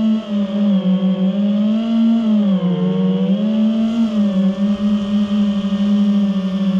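Multirotor drone's motors and propellers whirring steadily, the pitch wavering gently up and down as the motors change speed.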